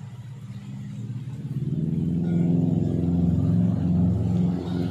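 A motor vehicle's engine passing close by, building up over the first two seconds and staying loud until near the end.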